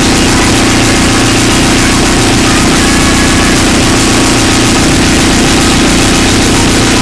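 Lolicore electronic track in a harsh-noise passage: a loud, dense, steady wall of distorted noise with a sustained drone low down and no clear beat.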